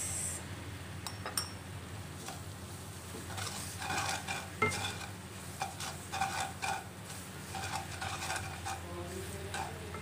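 Slotted wooden spatula scraping and stirring sautéed garlic, coriander roots, pepper, brown sugar and five-spice powder around a granite-coated nonstick wok, with a light sizzle from the pan. The scrapes come in quick irregular strokes, busier from about three seconds in.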